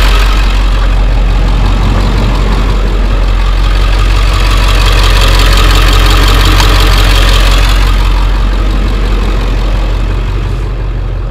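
Old pickup truck running in four-wheel high on a rough dirt road: a steady low engine drone under a broad rushing rumble of road and cab noise, which eases off over the last few seconds.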